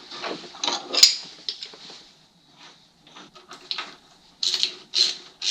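Hand tool clinking and scraping on the sheet-metal cooling tin of an air-cooled VW engine as a fastener is worked loose: irregular metallic clicks and scrapes, the loudest about a second in, then a quiet stretch and a cluster of clinks near the end.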